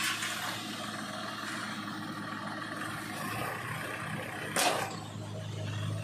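Heavy diesel engine running steadily at idle, with a short sharp noise about four and a half seconds in.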